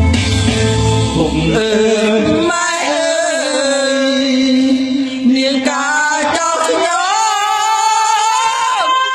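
A man singing karaoke into a microphone over a backing track, holding long, wavering notes. The deep bass of the backing track drops away about two seconds in, leaving the voice over lighter accompaniment.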